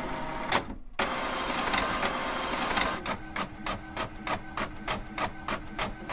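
Typewriter sound effect: a couple of key clicks, then a steady mechanical rasp for about two seconds. From about three seconds in comes rapid typing at about five keystrokes a second.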